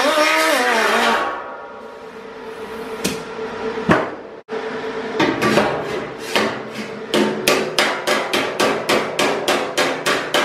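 Hammer and dolly striking a thin sheet-metal body panel: a couple of single knocks, then from about five seconds in a steady run of roughly three blows a second, each with a short ring, working a stepped-out panel edge down flush. A loud whine with a wavering pitch stops about a second in.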